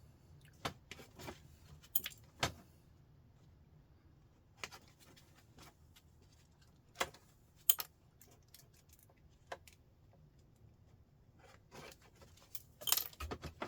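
Scattered sharp metal clicks and clinks from hand tools cutting off brass pins and handling small metal parts. They come one at a time with long gaps, then bunch together near the end.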